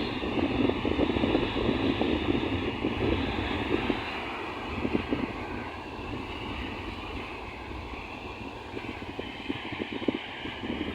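Wind gusting against the microphone with a rumbling buffet, strongest in the first few seconds, easing about four seconds in and picking up again near the end.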